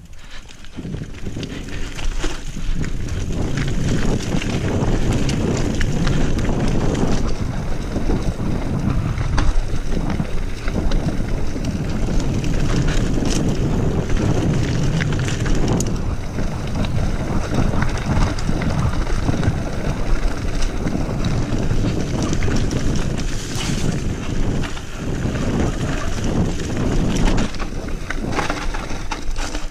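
Wind buffeting the microphone as a Trek Remedy 7 full-suspension mountain bike rides a rough trail at speed, with tyre roar and frequent knocks and rattles from the bike over bumps. It builds up over the first couple of seconds.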